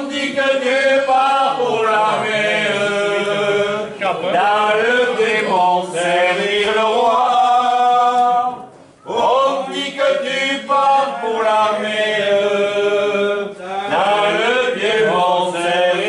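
Unaccompanied singing with long held notes, breaking off briefly about nine seconds in before the next phrase.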